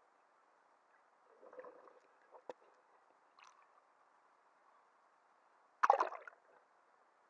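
Water sloshing and gurgling in a small pool, heard muffled through a camera held at and under the surface, with a short sharp knock about two and a half seconds in and a loud splash near the end as the camera plunges back under the water.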